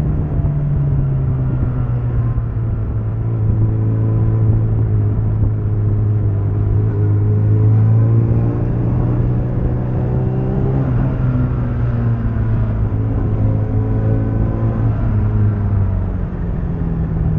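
Suzuki Bandit 650's inline-four engine running at low, fairly steady revs as the motorcycle rolls and slows in traffic. The sound starts to fade out near the end.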